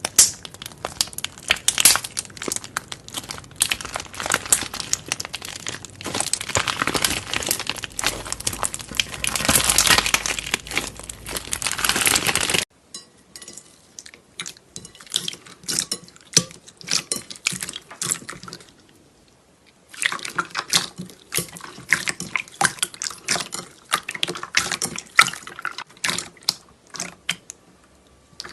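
Slime being squished and pressed, making dense wet clicking and crackling pops. Partway through it cuts off suddenly to a quieter stretch of sparser clicks, and the denser crackling comes back about two-thirds in.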